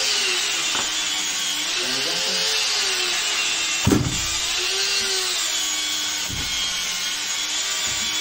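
400cc two-stroke motorcycle engine running on a test stand, its revs rising and falling gently in a slow wavering whine. A sharp knock about four seconds in.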